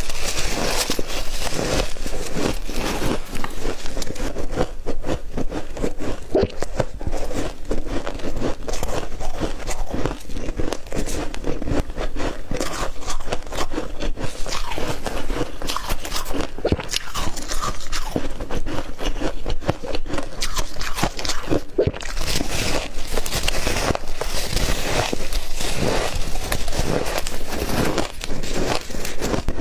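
Shaved ice being bitten and chewed, a steady run of rapid, crisp crunches that goes on without a break.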